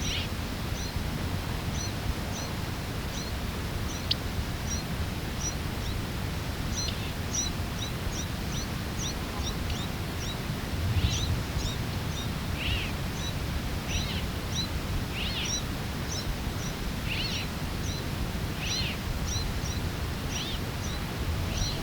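Thin, high chirps repeated about twice a second, joined about seven seconds in by louder, falling calls that come about every second and a half: a flightless fledgling and its father calling to each other as the parent calls the chick over.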